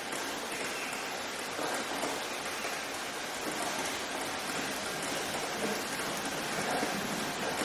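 Steady rain falling, an even hiss of drops without breaks.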